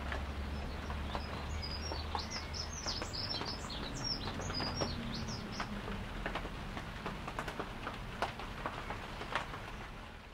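Small birds chirping in a quick burst of short high calls for a few seconds, over a low steady hum and scattered light clicks and taps; the level tapers off near the end.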